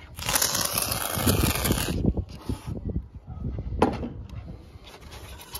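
Polyurethane construction foam hissing out of a foam gun's nozzle for about two seconds as a bead is laid, then stopping abruptly. Light crackling and scraping follow, with one sharp click near the middle.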